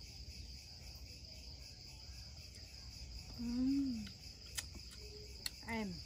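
Crickets chirping as a steady high-pitched drone. About halfway through a woman's short hum rises and falls. Near the end come a couple of light knife taps on a wooden cutting board.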